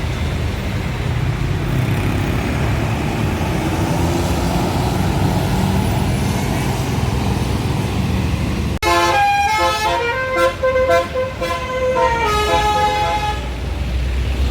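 Heavy road-vehicle rumble, then about nine seconds in a tour bus's basuri (telolet) multi-tone air horn plays a short tune of notes stepping up and down for about four seconds.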